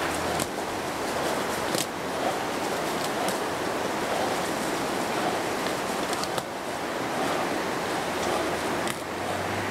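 Steady rushing outdoor noise, with a few faint clicks.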